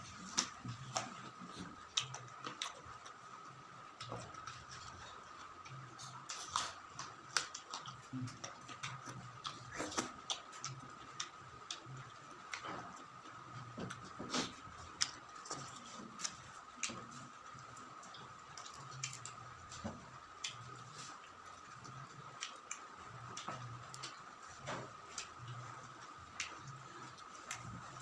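Close-miked eating sounds: chewing with irregular wet mouth clicks and smacks, several a second at times. A faint steady high hum runs underneath.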